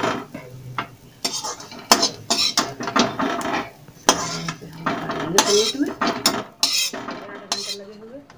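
A metal spatula scraping and clanking against a metal kadai, repeated irregular strokes as dry fried dal filling is scraped out of the pan.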